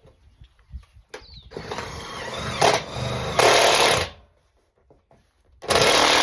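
Handheld power tool motor running in two bursts: a long one of about two and a half seconds that grows louder toward its end, and a short one near the end.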